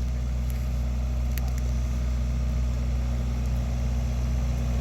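Excavator's diesel engine running steadily, a low even drone, with a faint tick about a second and a half in.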